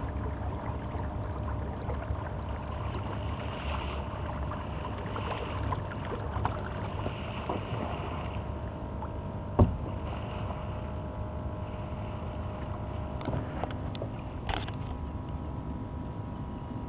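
Steady water and low wind noise around a small boat, with one sharp knock a little past halfway.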